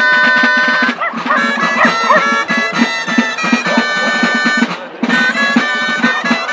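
Dolçaines (Valencian shawms) playing a loud, reedy folk melody over the steady beat of tabalet drums. The tune breaks off briefly about five seconds in, then resumes.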